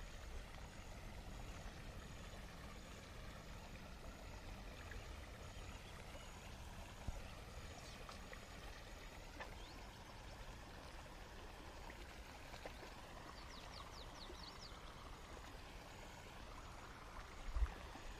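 Stream water running faintly and steadily, with a short knock about seven seconds in and a louder low thump near the end.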